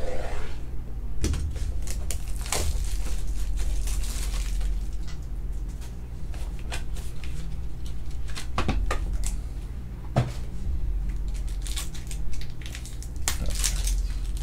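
Hands handling trading-card packaging: the cardboard hobby box and its inner sleeve rustling, with scattered clicks, over a steady low hum. A little before the end comes a dense crinkling as a foil card pack is torn open.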